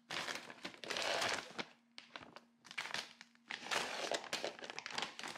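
Plastic packaging crinkling as it is handled, in irregular crackly bunches, over a faint steady hum.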